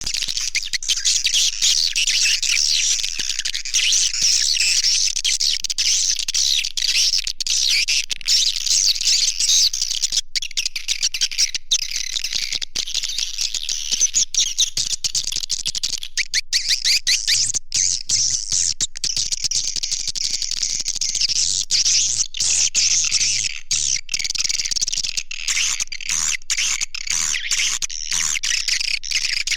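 Swiftlet lure call: a dense, continuous flock of high chirping and twittering swiftlets with rapid clicks. It is a recorded calling sound of the kind played in a swiftlet house to draw the birds in to roost and nest.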